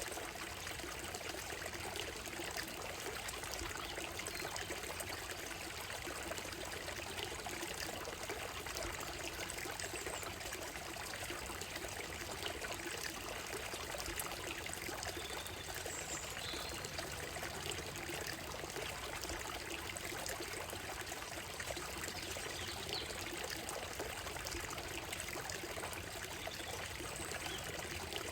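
Shallow stream running and trickling over a gravel and stone bed, a steady splashing hiss, with a few faint high bird chirps about halfway through.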